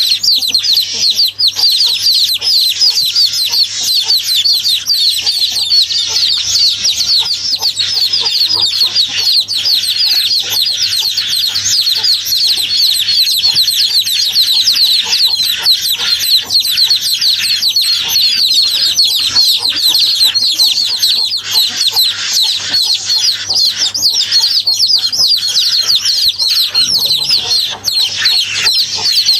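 Many small birds chirping at once in a dense, continuous chorus of short high peeps.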